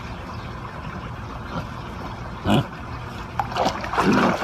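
Pool water sloshing and splashing as a large dog swims and then hauls itself out of a swimming pool, over a steady low hum. There is a splash about halfway through, and the loudest splashing comes near the end as the dog climbs out.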